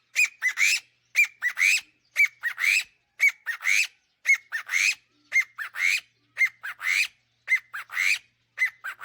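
A bird calling loudly in a long, regular series of short phrases, about one a second. Each phrase has two or three sharp notes, the last rising. This is a spring call of an excited bird, loud and rather tuneful.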